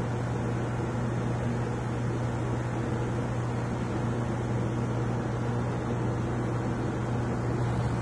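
Aquarium air pump humming steadily, with air bubbling from an airstone into the tank water.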